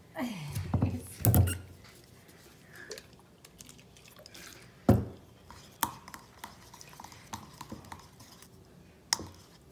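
Slime being mixed in a container with a utensil: a cluster of squeaky, clattering handling sounds in the first second and a half, then quieter stirring with a few sharp knocks of the utensil against the container.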